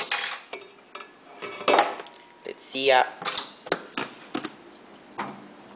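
Kitchenware clattering: a metal utensil knocks and scrapes against a pan and dishes in several separate short clatters, with a brief squeak about three seconds in.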